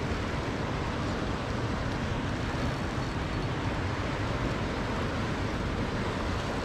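Steady rushing of fast-flowing creek water.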